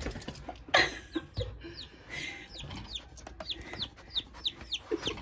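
Baby chicks peeping: short, high, falling peeps, about three a second, from about two seconds in. A couple of sharp knocks come about a second in.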